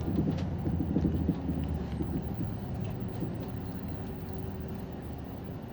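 City bus running noise heard from inside the cabin: a steady low engine hum with road noise and a few light rattles, gradually getting quieter.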